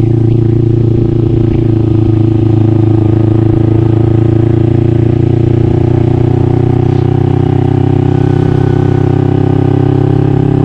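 Engine of a Yamaha Mio scooter fitted with a Kawasaki Ninja engine, running steadily under way with its pitch rising slightly near the end.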